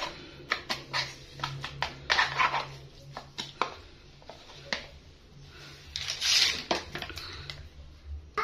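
Plastic fork clicking and scraping against a plastic container of salad in short, irregular clicks, over a low steady hum. A louder noisy burst comes about six seconds in.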